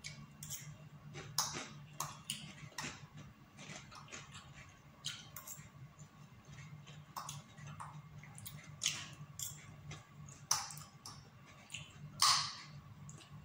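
Metal fork clicking and scraping against a ceramic bowl as the last noodles are picked out, in irregular light taps with a few longer scrapes, and chewing between them.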